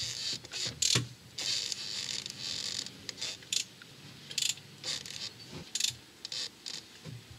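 The crankshaft of a Renault 1.5 dCi diesel being turned over by hand with a wrench, so that the timing belt and camshaft sprocket creep round. The tool and parts make short, irregular spells of mechanical clicking and scraping, with a knock about a second in.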